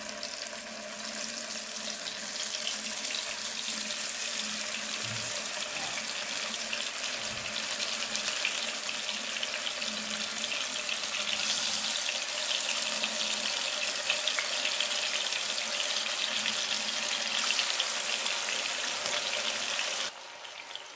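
Marinated fish pieces frying in hot oil in a shallow pan: a steady sizzling hiss with fine crackling as more pieces are laid in. The sizzle drops off suddenly near the end.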